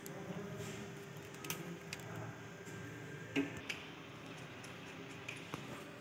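Faint handling noise: a few light clicks and taps of a plastic modular switch plate and its wires being moved by hand, the sharpest click about halfway through, over a faint steady hum.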